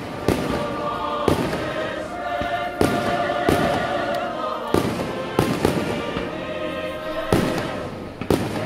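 Aerial fireworks shells bursting in a display finale: about ten loud bangs at uneven intervals, some in quick pairs. Music plays underneath.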